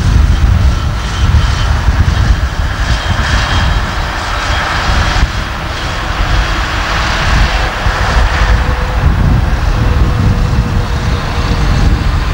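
Aircraft engine noise: a steady drone with a faint tone that sinks slowly in the second half, under a gusty wind rumble on the microphone.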